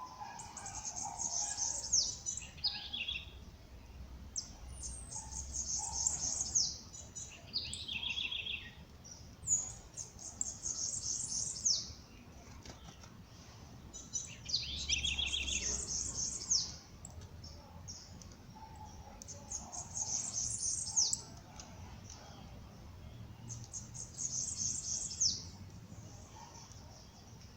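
A songbird singing a high, rapid phrase of about two seconds, repeated about every five seconds, several phrases ending in a lower trill. A second, softer and lower bird call comes in now and then between phrases.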